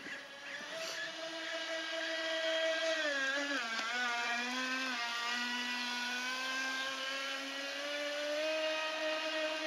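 Radio-controlled jet boat's 5800kv brushless motor driving an NQD jet unit, a steady whine. Its pitch drops about three seconds in as the motor slows, then climbs back near the end.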